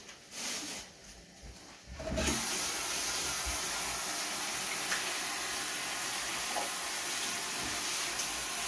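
Water running steadily, starting abruptly about two seconds in after a quiet moment.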